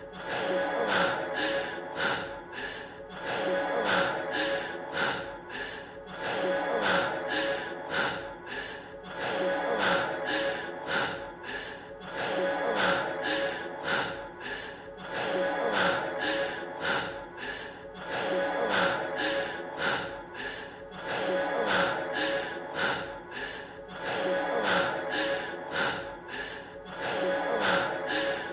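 A man's rapid, heavy panting breaths, about two a second, over a sustained music backing. A few-second snippet of breathless panting from the end of a recorded rap track repeats over and over.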